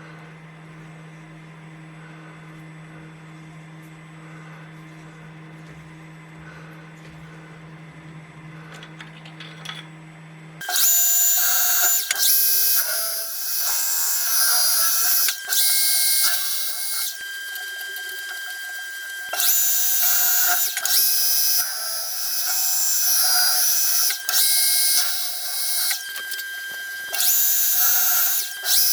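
A power drill boring a hole into a steel square tube. A low steady hum for the first ten seconds or so, then from about ten seconds in a loud, high-pitched cutting screech in stretches of one to a few seconds, with brief breaks.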